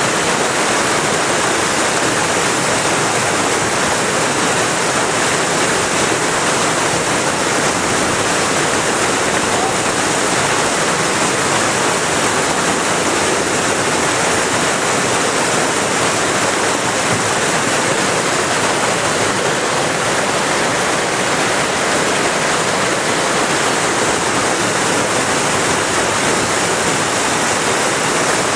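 Steady, even rush of fast-flowing white water.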